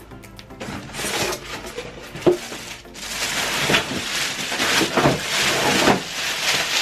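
Plastic packaging crinkling and rustling as packing material is pulled out of a cardboard box, with a single sharp knock a little over two seconds in. The crinkling becomes denser and louder from about three seconds in.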